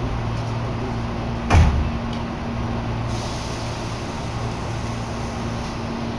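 Steady low hum of a commuter electric train standing at a station, heard inside the carriage, with one dull thump about a second and a half in.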